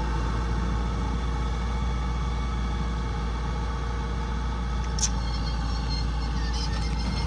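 Combine harvester's engine running steadily under load, with a low drone; a short sharp click about five seconds in.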